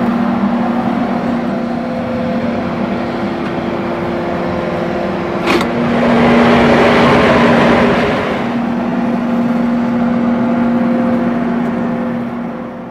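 Electric smokehouse running with a steady motor hum. About five and a half seconds in, a sharp click as the door lever is worked, followed by a louder rushing noise for about two seconds.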